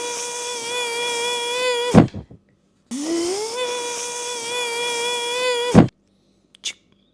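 A person making a mouth sound effect: a hummed whine rises in pitch, holds steady with a hissy edge, and cuts off in a sharp burst. The effect is done twice, then comes a brief click.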